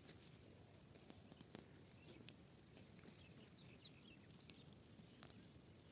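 Near silence: faint chirps of poultry, a few short high calls in the middle, with faint scattered clicks.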